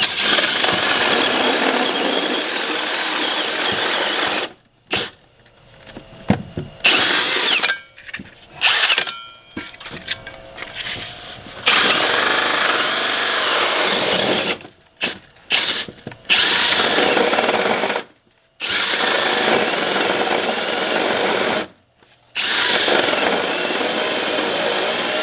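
Cordless drill spinning a hole saw through a house's side wall, run in repeated bursts: one long run, then a stretch of short stop-and-start bursts, then several longer runs with brief pauses. The bit is catching on a nail in the wall.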